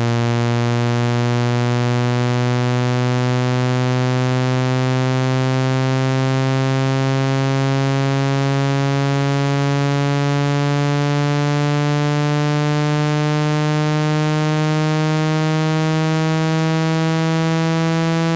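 Electronically generated speaker-cleaning tone: a steady, low, buzzy tone rich in overtones whose pitch rises slowly and evenly. It is played to vibrate water and dust out of a phone speaker.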